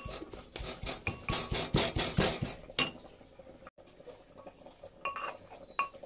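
Metal pestle pounding garlic, ginger and herbs in a small metal mortar, grinding them into a chutney paste: a quick run of knocks for the first two and a half seconds, then a few separate clinks that ring on briefly, metal on metal.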